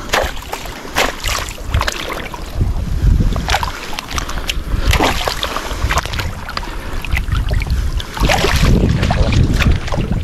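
Shallow marsh water splashing and sloshing irregularly as people wade and work in it, with wind rumbling on the microphone; the splashing grows louder near the end.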